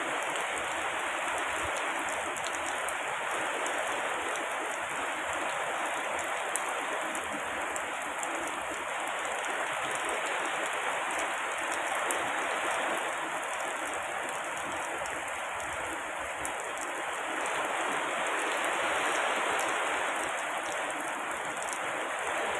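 Steady heavy rain: an even, unbroken hiss of falling water with many small drop ticks through it.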